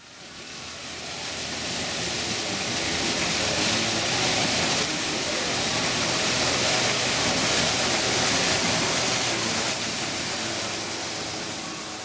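Artificial waterfall spilling from a timber wall over rockwork into a pool: a steady rush of falling water that fades in over the first two seconds and eases off near the end.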